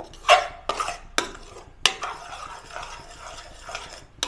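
Spoon scraping and knocking against a kadhai as tomato purée is stirred while it fries in ghee and butter: four or five sharp scrapes in the first two seconds, then a soft steady sizzle.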